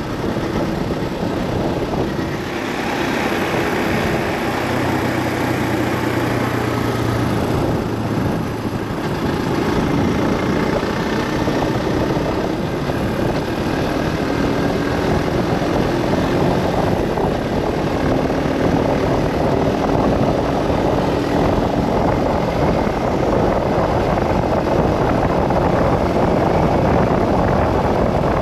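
Vehicle driving along a road: steady road, engine and wind noise, with a faint engine tone that drifts slightly in pitch.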